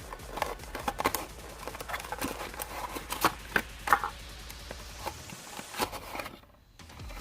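Plastic packaging and boxes being handled: irregular clicks, taps and crinkles.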